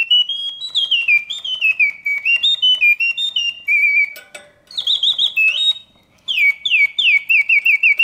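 A 1966 Reuge singing birdcage's mechanical bird whistling in continuous mode: a bellows-blown piston whistle giving a sweet song of chirps and falling slurs. It breaks briefly about four and six seconds in, then runs into a quick trill of about five falling chirps a second near the end. The serviced mechanism runs smoothly and quietly.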